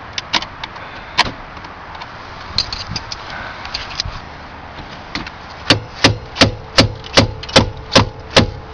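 Repeated hammer blows, about nine evenly spaced strikes at roughly three a second, beginning a little past halfway, after scattered light clicks and knocks. A faint steady tone runs under the blows.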